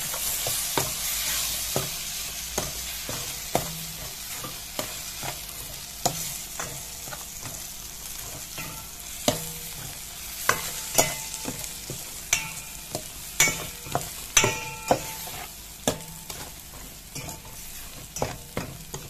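Metal spoon stirring tomatoes and ground spices frying in oil in a stainless steel pot: a steady sizzle under frequent sharp clinks and scrapes of the spoon against the pot. From about ten seconds in, the clinks come thicker and louder, and some make the pot ring briefly.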